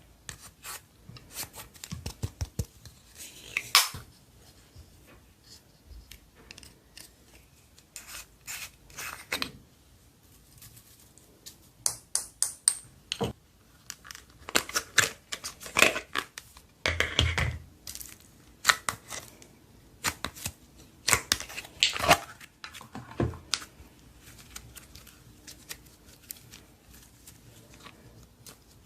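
Slime being mixed and squished by hand: irregular sticky clicks, pops and crackles in clusters, with quieter pauses between.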